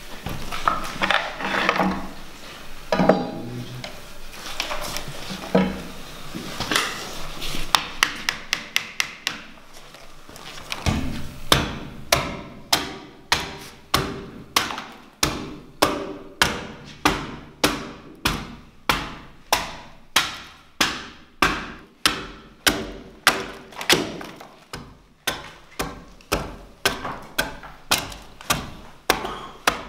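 German broad axe chopping into a timber beam as its face is hewn: scattered knocks at first, then from about eleven seconds in a steady run of strikes, a little under two a second.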